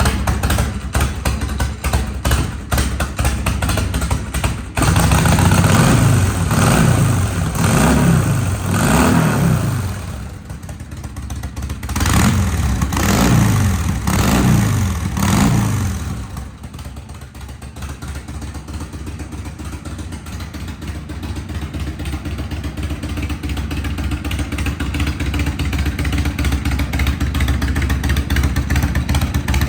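Harley-Davidson XL1200L Sportster's fuel-injected 1200 cc V-twin idling, revved up and down several times a few seconds in and again near the middle, then settling back to a steady idle.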